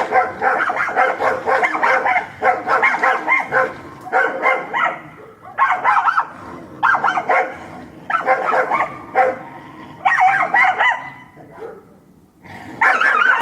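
Two dogs fighting: barking and yelping in rapid, overlapping bursts. The noise dies down briefly near the end, then flares up again.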